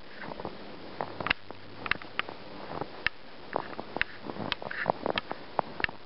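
Footsteps crunching and squeaking in packed snow: irregular sharp crunches, several a second.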